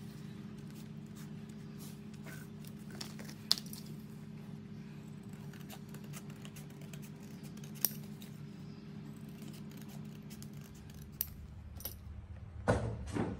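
Quiet hand work on a paper template over a steady low hum: a few sharp isolated clicks, and large shears snipping the paper. Near the end comes a short scraping rustle, the loudest sound.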